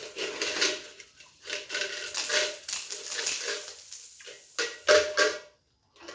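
Coins rattling inside a tin coin bank as a small child shakes it, in three bouts: one right at the start, a longer one from about one and a half to three and a half seconds, and a short one about five seconds in.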